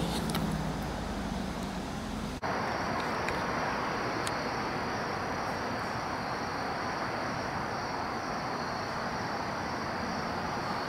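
A few clicks and a low rumble of handling noise, then a sudden change about two seconds in to steady woodland ambience: insects droning in a steady high band over an even rushing noise.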